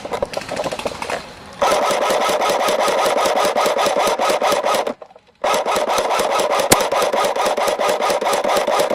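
A rapid, even mechanical rattle running in two long stretches, with a short break about five seconds in.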